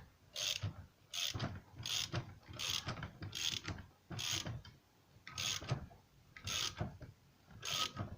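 Ratchet wrench cranked in repeated short strokes, about one a second, clicking as it winds in the bolt of a bearing puller that is straining to draw a stuck bearing off a moped crankshaft.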